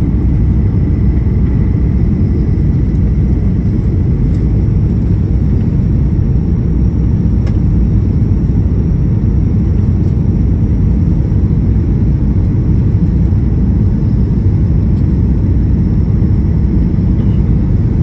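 Boeing 737-900 airliner cabin noise during the descent to landing, heard inside the cabin: a steady, even low rumble of engines and airflow.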